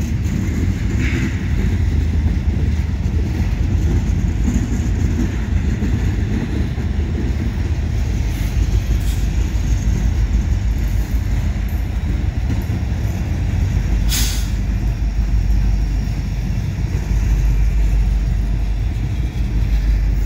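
Freight cars of a slow CN train rolling past: a steady low rumble of steel wheels on rail, with one sharp clank about fourteen seconds in.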